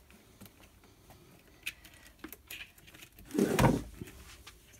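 Handling noise from a plastic Flow Hive Flow Frame being worked on a wooden bench: faint clicks and rustles of plastic and wire, then a louder rubbing bump about three and a half seconds in as the frame is turned onto its side.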